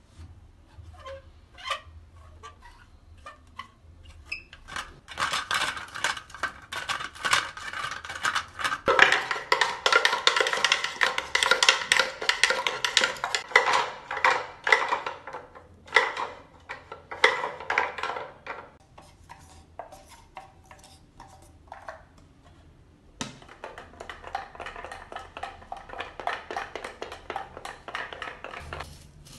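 Foley for a wooden wagon made with homemade props (a toilet-paper holder, wooden boxes and a pot of soil): a steady run of rattling wood, clicks and squeaky creaks. It swells after about five seconds, eases off around twenty seconds, and comes back after a knock near twenty-three seconds.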